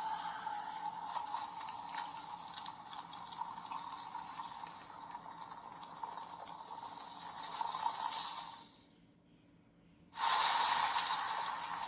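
Hissing, static-like sound effect played through a Kamen Rider Vision Driver toy belt's small speaker. It swells, then cuts out a little under nine seconds in, and starts again loudly about a second and a half later.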